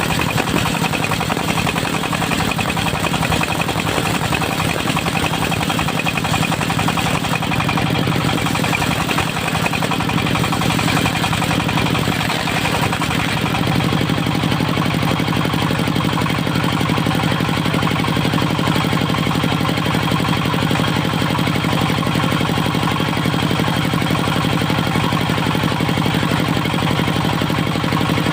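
Dongfeng diesel engine of a mobile circular sawmill running steadily, its note shifting slightly about halfway through.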